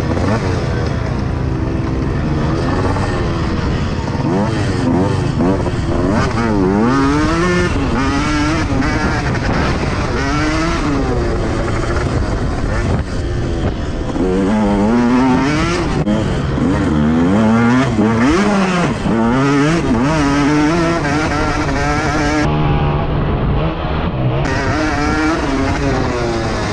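KTM motocross bike engine revving hard and backing off again and again, its pitch climbing and dropping with each run through the gears, heard from on the bike while it is ridden round a dirt track.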